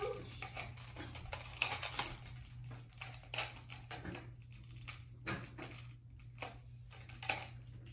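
Translucent plastic magnetic building tiles clicking and clacking as they are picked up, set down and snapped together edge to edge, an irregular run of sharp clicks.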